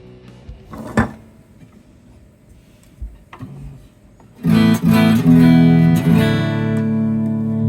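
Silvertone 1446 electric guitar played clean: a few quiet notes and a sharp pick attack about a second in, then loud strummed chords about four and a half seconds in, the last chord left ringing.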